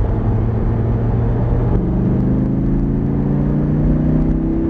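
Lamborghini Gallardo Performante's V10 engine heard from inside the open cockpit. It holds a steady note through a bend, then from about two seconds in accelerates hard, its pitch climbing steadily, over a low rumble of wind and road noise.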